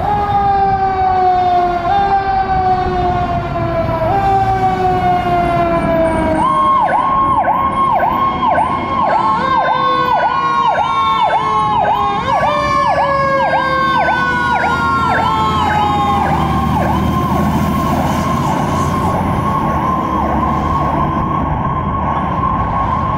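DC Fire and EMS Truck 10's sirens sound as it responds. One siren's pitch falls slowly and is pushed back up about every two seconds. About six seconds in, a second siren joins with a fast yelp, dipping about twice a second, and later evens out into a near-steady high tone, all over the ladder truck's engine rumble.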